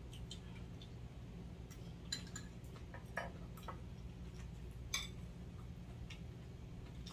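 Light clicks and clinks of metal chopsticks and spoons against ceramic bowls and plates as food is picked up, with a few sharper clicks about two, three and five seconds in. A low steady hum runs underneath.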